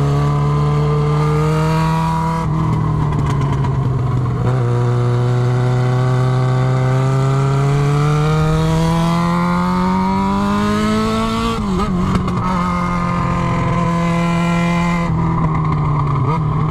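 Yamaha XJ6 inline-four engine running through an exhaust with the muffler tip removed, pulling hard under load. The note drops at a gear change about two and a half seconds in, climbs steadily for about seven seconds, drops again at another upshift near twelve seconds, then holds steady.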